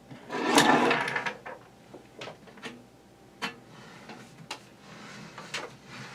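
Handling noise while working on a box fan: a scraping rustle about a second long, then a series of light clicks and knocks.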